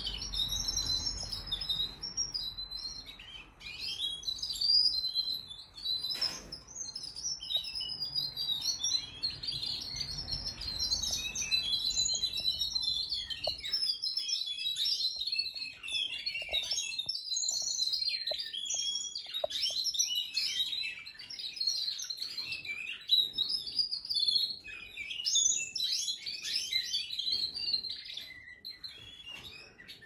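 Domestic canaries singing: a dense, unbroken run of rapid high trills and twittering chirps. A low hum sits underneath the first half and stops about halfway through.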